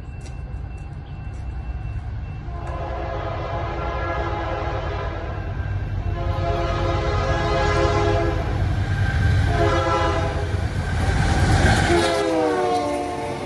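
Diesel freight locomotive approaching and passing, its multi-note air horn sounding in several blasts over a rising rumble of the train. The last blast drops in pitch as the locomotive passes close by about twelve seconds in.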